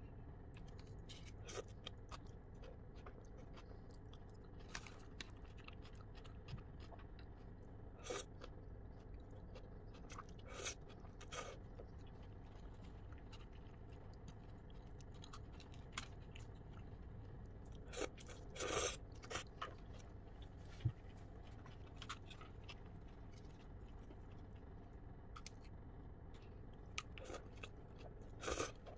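Quiet chewing and crunching of cold noodles with shredded cabbage and lettuce, mixed with short clicks and scrapes of chopsticks in the bowl. The louder crunches come in a cluster about two thirds of the way through and again just before the end.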